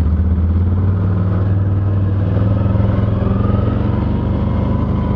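ATV engine running at a steady pace while riding.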